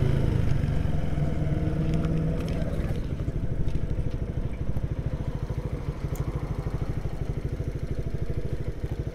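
Motorcycle engine running at low revs as the bike slows and rolls in to stop. It runs steadily for about the first three seconds, then settles into a slow, even, pulsing idle.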